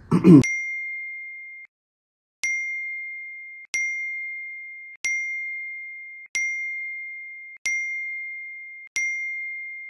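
Phone message-notification ding sound effect, repeated seven times about every second and a quarter, each a single high tone that fades out.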